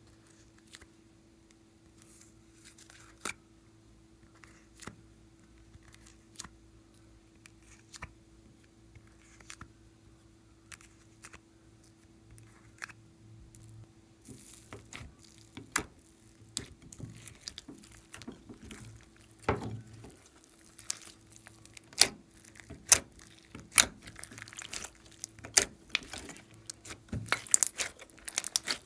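Slime and soft clay being handled: a few soft clicks as clay pieces are pressed onto the slime, then from about halfway dense wet clicking and crackling as the slime is squeezed and kneaded by hand. A faint steady hum runs underneath.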